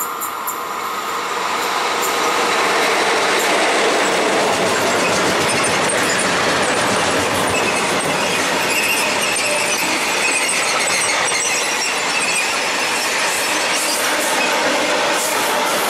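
Freight train passing close on the near track: a locomotive and then a long string of sliding-wall covered wagons, their wheels rumbling and clattering over the rails. The sound swells over the first couple of seconds and then holds steady, with a thin wheel squeal in the middle.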